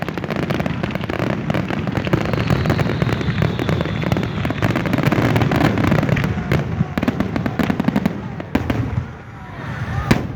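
Aerial fireworks display: a dense, rapid barrage of bangs and crackling, with a faint falling whistle a few seconds in. Near the end the barrage thins out to a few separate booms.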